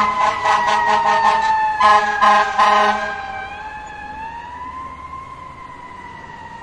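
Fire-engine siren sound effect in a slow wail, its pitch dipping and then rising again. A fast rhythmic beat sounds over it for about the first three seconds, after which the siren goes on alone and quieter.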